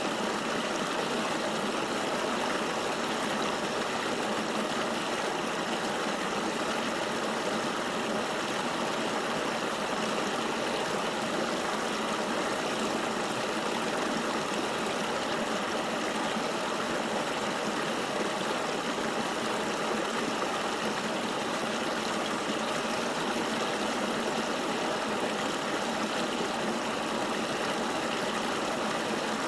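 Flowing river water, a steady, even rush with no breaks and little deep rumble.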